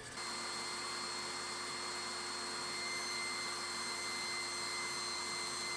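Table saw running steadily, its tilted blade cutting a bevel through a piece of blue foam board stood on edge.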